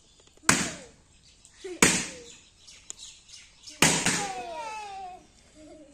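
Three balloons bursting one after another, each a sharp pop: about half a second in, near two seconds and near four seconds. The last pop trails off longer.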